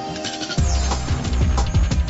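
Closing music: held tones, then about half a second in a heavy bass line and a steady drum beat come in.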